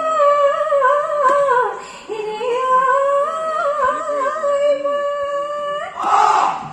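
A solo singer holds long, drawn-out, ornamented notes in a high voice, unaccompanied, singing two phrases of a Bihu husori song. Just before the end the full group comes in loudly with drums.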